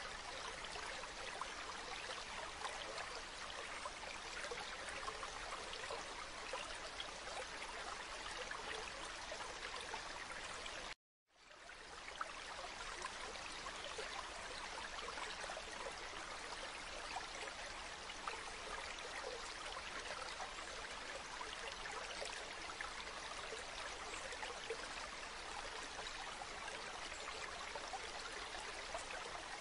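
Shallow stream running over pebbles, a steady babbling with fine trickling. About eleven seconds in the sound cuts out completely for half a second, then fades back up.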